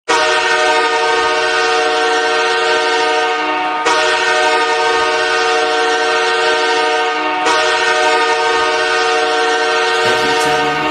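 Los Angeles Kings' arena goal horn blasting a chord of several steady tones in three long back-to-back blasts, each about three and a half seconds long.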